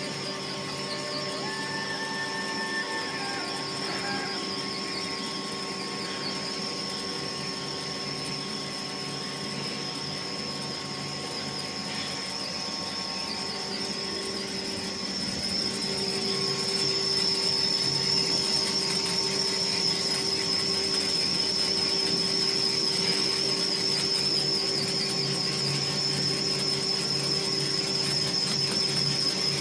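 CNC turning machine running, a steady high-pitched tone over a mechanical hum, growing louder about halfway through.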